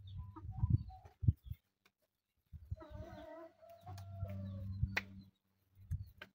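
Domestic chickens calling, with one drawn-out call of about two seconds in the middle that falls slightly at the end. Loud low thumps and rumble come and go around it, the loudest in the first second and a half.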